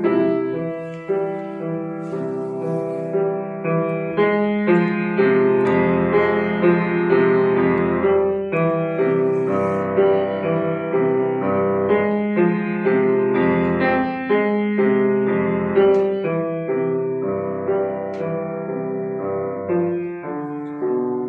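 Piano or keyboard playing a slow piece in held chords, a new chord or note struck every half second to a second.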